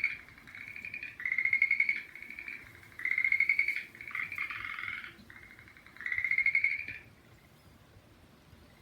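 Frogs calling in a rice paddy: rapid pulsed trills of about a second each, repeated and overlapping, some loud and close and others fainter. The chorus stops about seven seconds in.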